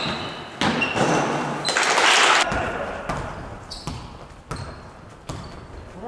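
Basketball bouncing on a wooden gym floor as a series of sharp, separate thuds, with a louder burst of rushing noise about two seconds in.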